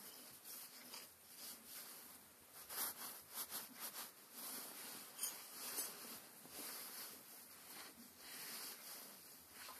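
Faint rubbing and a few light clicks and knocks as hands handle and fit together the gear and housing of a Massey Ferguson Multi Power input shaft assembly.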